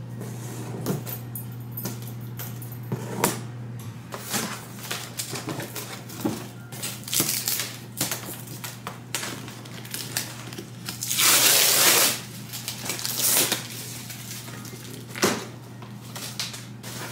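Scissors snipping plastic strapping bands on a cardboard box, with the straps and cardboard crackling and scraping as they are pulled off. Sharp irregular clicks throughout, and a longer, louder scraping rush about two-thirds of the way through, over a steady low hum.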